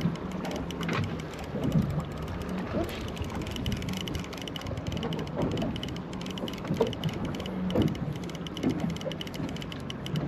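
Spinning reel cranked steadily under load, its gears and rotor clicking rapidly as a hooked fish is reeled up.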